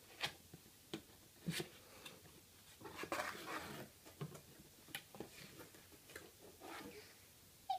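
Cardboard gift box being opened by hand: scattered light knocks and clicks as the lid and flaps are pulled open, with a short rustle about three seconds in.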